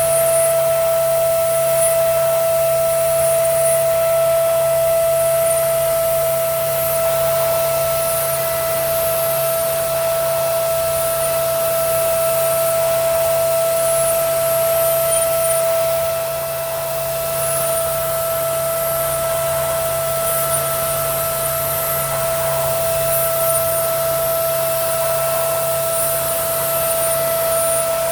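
Gerber Sabre 408 CNC router running a job on plywood: a steady high spindle whine with recurring patches of hiss from the cut, over the constant rush of the vacuum hold-down table and dust extraction.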